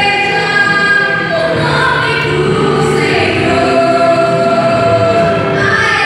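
A woman singing a gospel song into a handheld microphone, holding long notes over musical accompaniment.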